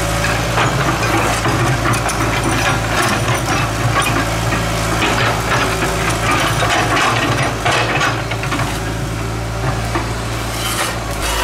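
Excavator's diesel engine running steadily under a continuous clatter of knocks and scrapes as it digs and loads earth.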